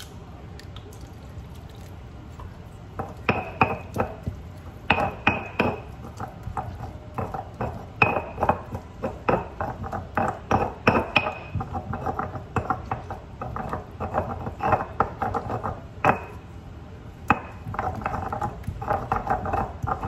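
Stone pestle (tejolote) knocking and grinding in a stone molcajete, crushing salsa ingredients. Sharp, irregular knocks with a short ring start about three seconds in, and the strokes come faster near the end.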